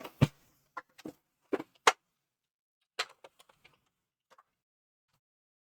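Plastic clicks and knocks from pulling the paper tray out of a Brother HL-L2300D laser printer: five or six sharp knocks in the first two seconds, then a few lighter ticks.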